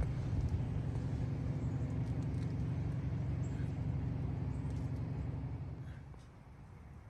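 A steady, low mechanical hum of an engine or motor running, which fades out about six seconds in.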